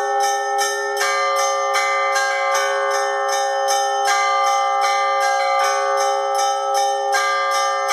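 Russian church bells rung in a continuous peal: small bells struck rapidly, about three strikes a second, over the long sustained hum of the larger bells.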